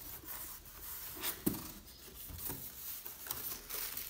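Cardboard box flaps being handled and plastic packaging rustling as hands reach into the box, in irregular rustles and scrapes that are sharpest about a second and a half in.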